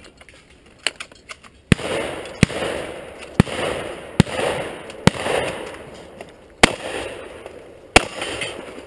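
Shotgun fired in quick succession at steel knockdown targets: about seven loud shots spread irregularly over some six seconds, each followed by a ringing echo.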